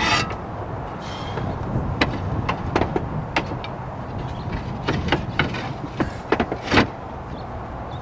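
Clay S-tiles clinking and knocking against one another as they are handled and set into place on the roof: a string of sharp short clicks, starting about two seconds in and bunching up near the end, over a steady low rumble.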